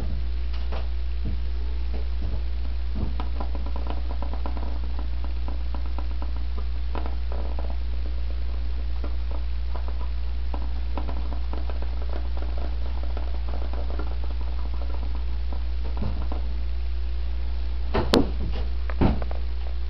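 Steady low hum, with faint scattered rubbing and ticking as a rag is worked over the plastic headlight cowl, then two sharp knocks about a second apart near the end.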